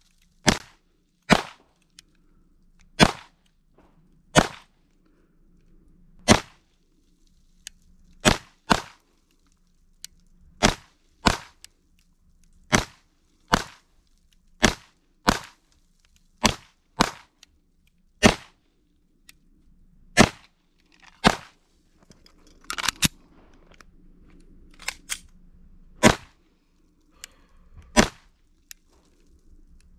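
Pistol shots fired one at a time in slow, unhurried fire: about two dozen sharp reports at uneven gaps of roughly one to two seconds, a few coming in quick pairs.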